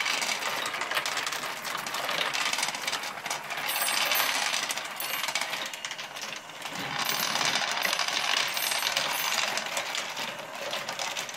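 Many small steel balls clicking and rattling as they roll through the plastic tubes of a homemade ball lift and over a grooved plexiglass carousel disc: a dense, continuous clatter that dips briefly a little past halfway.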